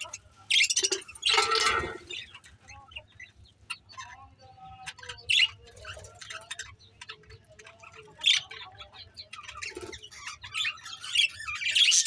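A flock of budgerigars chirping and chattering in quick, high notes. The chirps come thickest about half a second to two seconds in and again near the end, with sparser chatter between.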